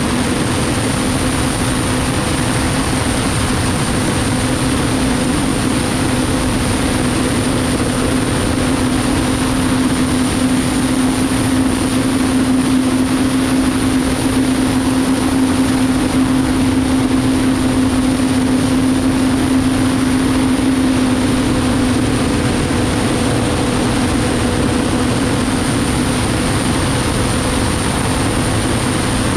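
Unlimited hydroplane's Lycoming T55 turbine engine running at racing speed, heard onboard: a steady high turbine whine and a lower hum over a rush of wind and spray. The lower hum eases about two-thirds of the way through.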